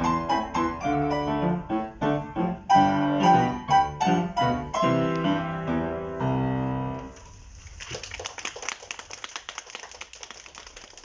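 Piano duet playing a Spanish-style piece in short, accented chords, ending on a held chord about seven seconds in. Audience applause follows and slowly thins out.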